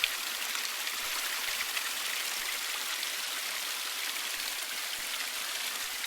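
Small woodland stream running over rocks: a steady hiss of flowing water.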